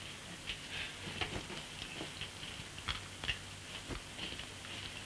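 Crickets chirping in short, repeated bursts, over the hiss and crackle of an old optical film soundtrack.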